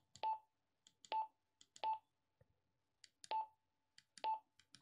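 Retevis RT85 handheld radio's keypad beeping as its buttons are pressed: a sharp button click, then a short mid-pitched confirmation beep, five times at irregular intervals about a second apart, with faint key clicks in between.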